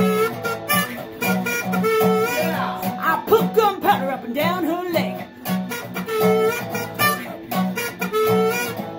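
Harmonica playing melody phrases, with held notes and bends, over a steady strummed acoustic guitar. The uploader says the harmonica is in the wrong key for the song.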